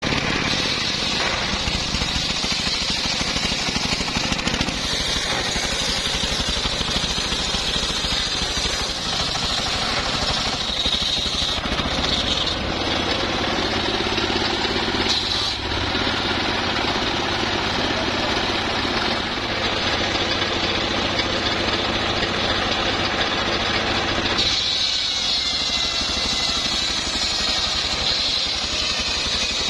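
Homemade engine-driven circular sawmill cutting logs: the engine's steady throb runs under the hiss and whine of the large circular blade biting through the wood. The blade's tone shifts as cuts change, with a steadier hum from about twelve seconds in until a change at about twenty-four seconds.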